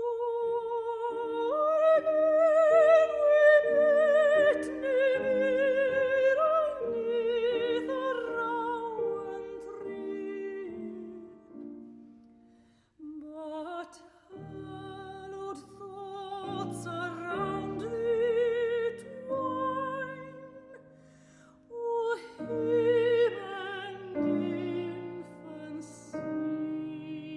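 Classical, opera-style music: a voice sustaining long notes with strong vibrato over piano chords, in phrases broken by short pauses.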